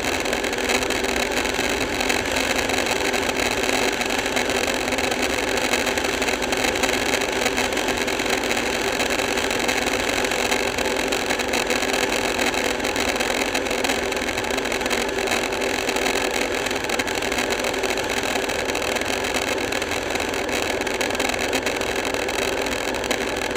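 Motorcycle cruising at highway speed: a steady rush of wind and road noise over the bike-mounted microphone, with the engine's even drone underneath and no change in speed.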